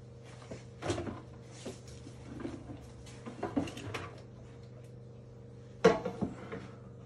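Air fryer basket drawer being pulled out with clicks and clattering, then a loud knock near the end as the basket is set down on the worktop, followed by a smaller knock.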